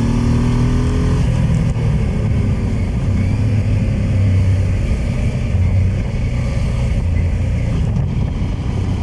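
Motorcycle engine running under way, with wind noise on the microphone. The engine note is rising at the start and drops about a second in, then runs steady and low.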